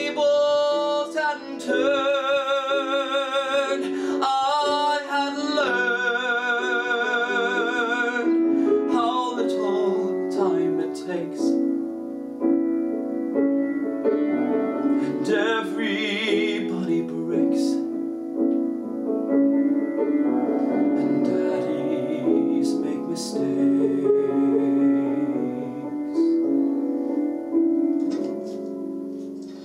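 A male singer holding long notes with vibrato over piano accompaniment, the end of a musical-theatre ballad; the piano plays on alone and fades out near the end.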